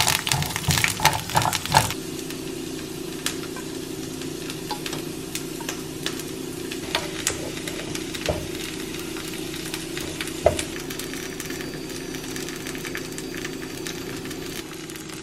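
Food sizzling in a non-stick frying pan, with a steady low hum underneath. In the first two seconds a utensil clatters busily against the pan; after that the tomato sauce sizzles steadily while a spatula taps the pan a few times.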